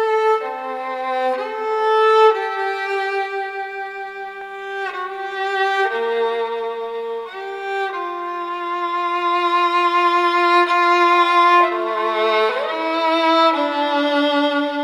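Background music: a slow melody of long held notes, each lasting a second or two.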